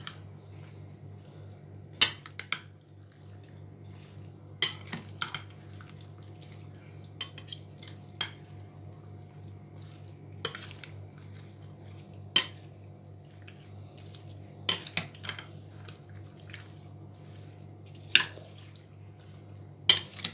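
A plastic spatula stirring chopped fruit in orange juice in a glass bowl, clinking sharply against the glass at irregular moments, about every one to three seconds. A steady low hum runs underneath.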